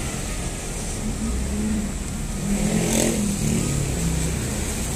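Large bus diesel engine running and revving up about halfway through as a coach moves across the terminal, over a steady hiss of rain.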